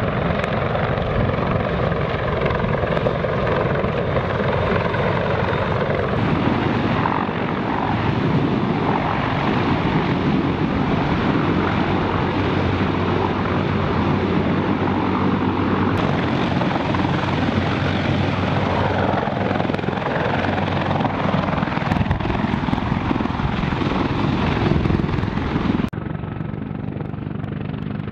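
Sikorsky CH-53E Super Stallion heavy-lift helicopter's rotors and turbine engines running steadily in flight while it carries an M777 howitzer as a sling load. The sound changes abruptly about six seconds in and again near the end.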